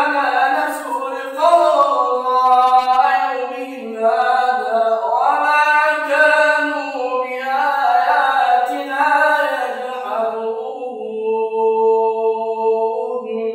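A man's solo Quran recitation in a melodic, unaccompanied style, the voice drawing out long melismatic notes. It settles on a long held note near the end.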